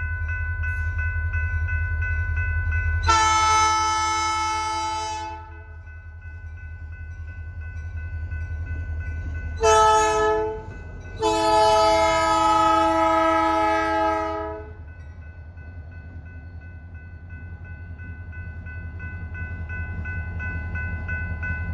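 Norfolk Southern diesel locomotive's multi-chime air horn sounding for a grade crossing: a long blast, a short one and a long one, over the steady low rumble of the locomotive engines. A crossing bell rings steadily underneath.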